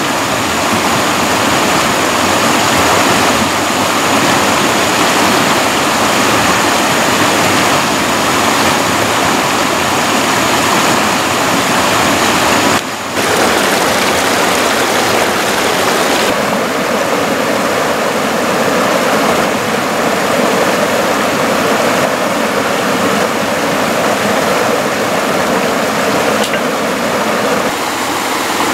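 Loud, steady rush of a fast mountain stream pouring over rocks and small cascades, with a brief dip about halfway through.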